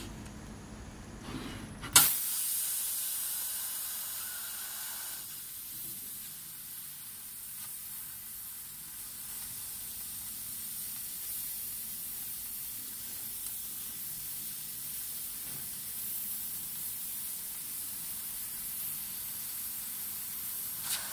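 750 W Raycus fiber laser cutting 10 mm carbon steel: the assist-gas jet at the cutting nozzle opens with a sharp click about two seconds in, then hisses steadily and high-pitched while the beam cuts through the plate. The hiss cuts off at the very end; before it starts, only the machine's low hum is heard.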